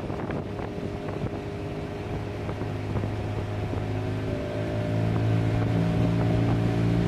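Motorboat engine running steadily, a low drone that grows louder and shifts a little in pitch about four to five seconds in, with wind on the microphone.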